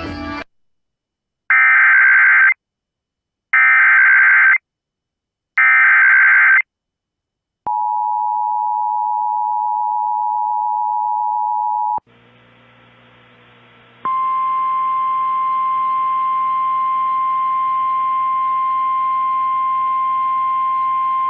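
Emergency Alert System header: three one-second bursts of SAME digital data, then the two-tone EAS attention signal held for about four seconds. After a moment of faint radio hiss and hum, a steady single tone starts about two-thirds of the way through and runs over the hum. This is the NOAA Weather Radio 1050 Hz warning alarm tone that comes before a severe thunderstorm warning.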